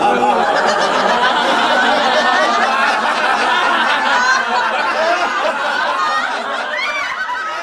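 A laughter yoga group laughing hard together, many men's and women's voices overlapping into one loud mass of laughter, which starts to fade near the end.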